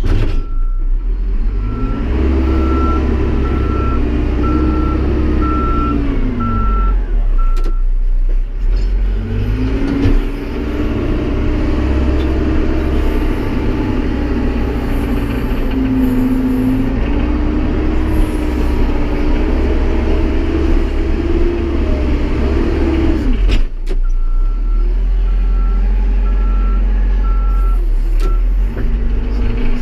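Tractor backhoe-loader engine working, its pitch rising and falling as the loader scoops and backs up. A backup alarm beeps steadily twice over, for several seconds near the start and again a few seconds before the end, while it reverses.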